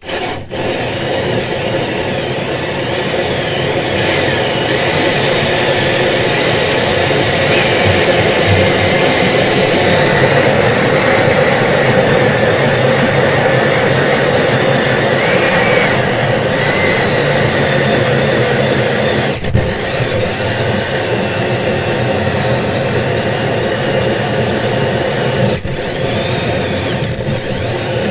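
Cordless drill driving a hole saw with its pilot drill into a chipboard floor: the motor runs steadily under load as the saw cuts into the board. The sound dips briefly twice, about two-thirds of the way through and again near the end.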